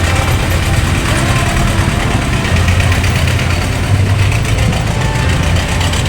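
Motor vehicle engine idling with a steady low hum.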